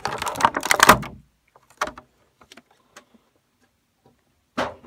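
Clear plastic bag crinkling as a toy is handled inside it for about the first second, then a few faint taps and a short rustle near the end.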